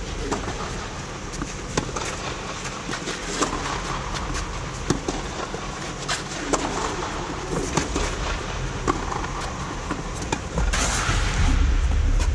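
Tennis rally: sharp pops of a tennis ball struck by rackets and bouncing, about one every second and a half, over a steady background rush. Near the end a louder low rumble comes in.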